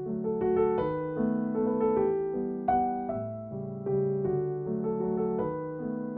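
Background piano music: a gentle melody of soft held notes.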